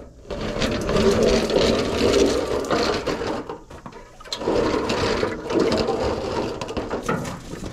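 Low-profile oil drain pan being shoved and dragged across loose gravel: a loud scraping crunch in two long pushes with a short pause between them.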